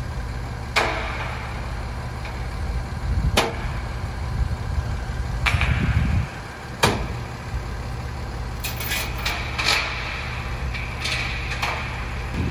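Propane boom truck's engine idling steadily, with sharp metal clanks every few seconds and a run of clattering near the end as the crane's lifting chain is handled around a propane tank.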